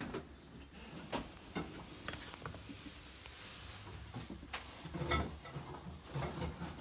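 Scattered light knocks and clicks of objects being handled, over a low steady hum.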